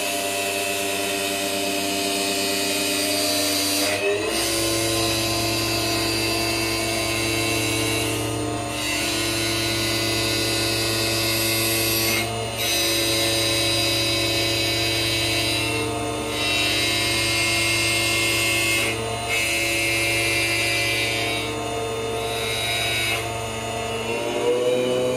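CNC wood lathe running, with a steady motor whine. Over it is the hiss of the cutting tool on the spinning wood, which breaks off briefly every few seconds.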